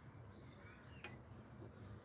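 Near silence: faint room tone with one faint click about a second in.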